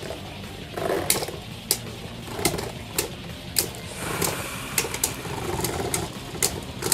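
Two spinning Beyblade Burst tops, a custom 3D-printed bey and a Cho-Z Spriggan, whirring across the stadium floor. Sharp clacks come about every half second to a second as they collide.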